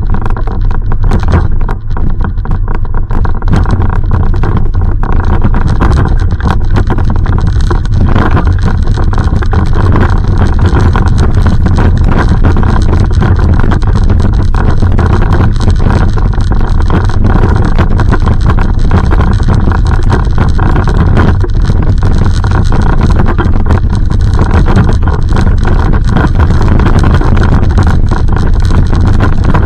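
Loud, steady rumble on a walking body-worn camera's microphone, wind and handling noise, with many small crackles throughout.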